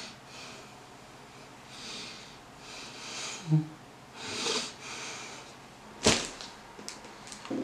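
A person breathing audibly through the nose, with a short low grunt about three and a half seconds in. About six seconds in comes a sharp tap or knock, followed by a few lighter clicks.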